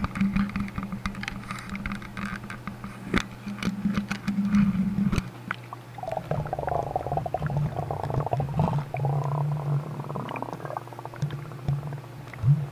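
Action camera lowered from a bridge into a fast-flowing flooded river: first a run of clicks and knocks as the camera is handled against the railing, then, from about five seconds in, the muffled churning rush of the strong current around the submerged camera.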